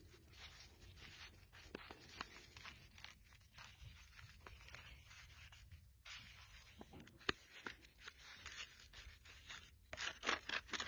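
Faint scraping and crinkling of a thin plastic nursery pot being squeezed and worked in the hands, with roots tearing out through its drainage holes. A run of louder crackles comes near the end.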